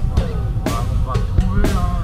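Background music with a steady drum-kit beat, about two strokes a second, under pitched melodic lines.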